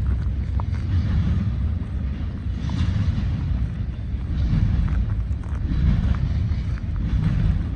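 Freight train rolling past, a steady low rumble mixed with wind buffeting the microphone.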